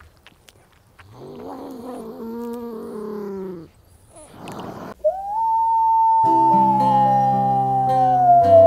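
A wavering, whining animal call for a couple of seconds, then a long wolf howl: one clear tone that holds and slowly sinks in pitch, dropping near the end. Instrumental music with guitar chords plays under it.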